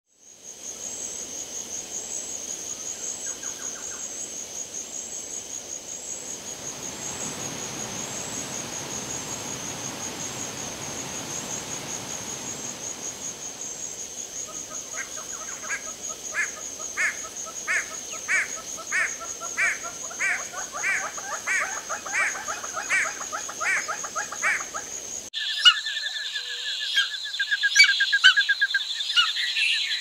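Tropical rainforest ambience: a steady high, pulsing insect drone with a rush of water noise swelling in the middle. About halfway through, a bird starts calling over and over, about twice a second. Near the end the sound cuts abruptly to a different bird's high, trilling calls.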